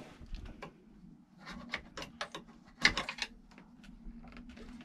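Small round bathroom extractor fan being handled on the wall: a handful of sharp clicks and knocks on its plastic grille and housing, with a faint steady hum from the fan motor starting about a second and a half in.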